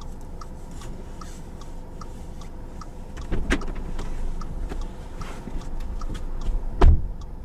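A car's indicator relay ticking steadily about twice a second in the stopped car, with a thud about three and a half seconds in and a heavy thump near the end.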